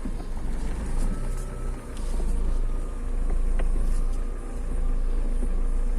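Daewoo Lanos engine idling while the steering wheel is turned at a standstill, with a few light clicks. The steering column gives no squeak.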